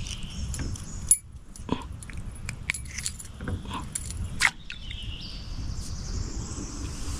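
Metal spinnerbait blade and wire clinking and jingling in the hand as the lure is unhooked from a small largemouth bass: a string of sharp clicks and clinks over the first few seconds. Faint birdsong in the background.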